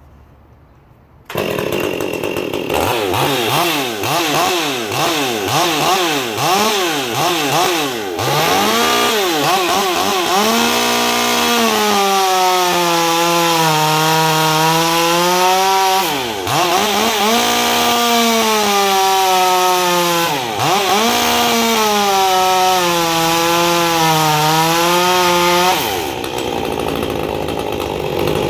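Stihl MS 201T-CM two-stroke top-handle chainsaw, a West Coast build, running at high revs and cutting hard kiln-dried wood. It starts abruptly about a second in, its pitch wavering rapidly for several seconds, then holds high with two brief dips in pitch, and drops to a lower level near the end.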